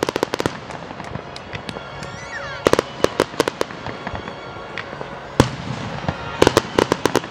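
Aerial firework shells bursting in clusters of sharp bangs and crackles: a quick run of reports at the start, another about three seconds in, a single loud bang past the halfway point and a dense cluster near the end.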